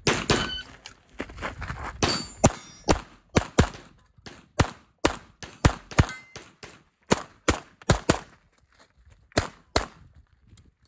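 CZ Shadow 2 pistol fired fast through an IPSC stage: a string of sharp shots, mostly in quick pairs, with short breaks between groups as the shooter moves between positions.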